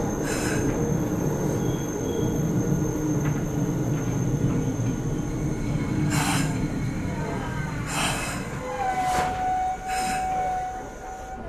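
Meitetsu 6800 series electric train heard from inside motor car Mo 6923, its running rumble easing as it slows into a station. There are four short hisses of air from about six seconds in, and a steady high squeal over the last few seconds as it comes to a stop.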